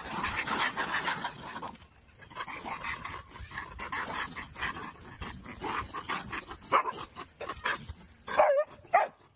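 A dog barking and yipping while chasing monkeys, with loud sharp barks near the end.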